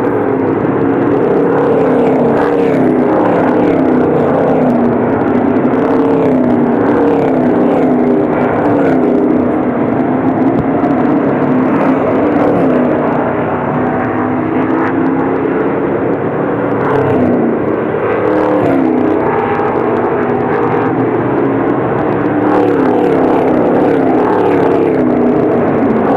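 A field of NASCAR Whelen Euro Series V8 stock cars racing, a loud continuous engine noise with several engine notes overlapping, rising and falling as the cars ease off, accelerate and pass by.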